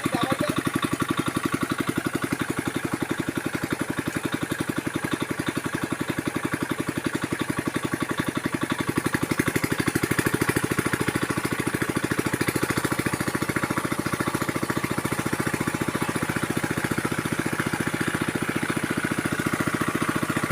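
A small engine running steadily with a fast, even chugging beat that holds throughout.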